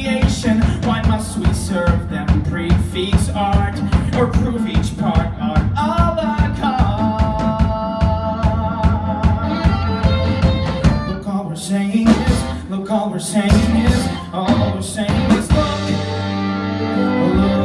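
A male voice singing a musical theatre song live over a band of piano and drum kit, with a long held note about seven seconds in.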